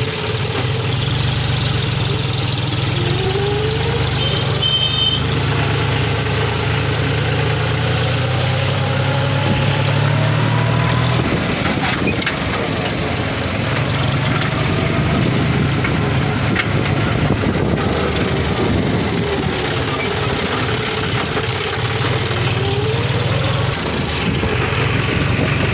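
John Deere 5036D tractor's three-cylinder diesel engine running steadily as it drives along, heard close from the driver's seat, towing a thresher.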